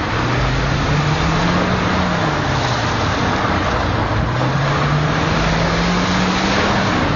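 Car engine revving up, easing off, then revving up again, under a steady rush of wind and tyre noise as the car drives along a muddy dirt track.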